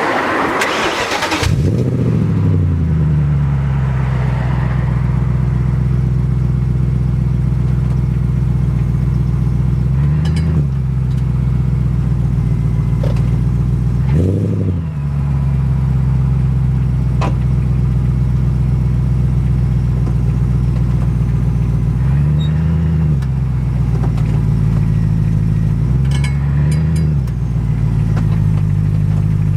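BMW 645Ci's 4.4-litre V8 catching and settling to a steady idle, with a few brief rises in engine speed. Sharp clicks come at scattered moments, which the owner takes for a clicking from the differential of unknown cause.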